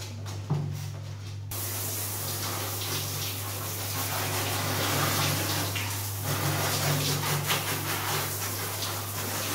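Handheld bathroom shower head spraying water over a small dog and splashing onto the tiled floor, turning on suddenly about a second and a half in and running steadily, under a steady low hum.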